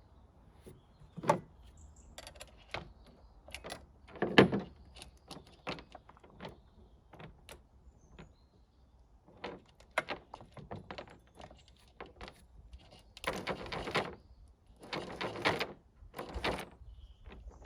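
Objects being handled and unpacked: scattered clicks and knocks, the loudest about a second and four and a half seconds in, then three longer scraping or rustling sounds near the end.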